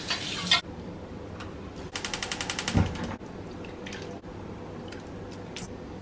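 A metal spoon and a non-stick frying pan being worked: a short scrape at the start, then about two seconds in a rapid rattle of roughly a dozen clicks a second that ends in a thump, followed by a few faint clicks and taps.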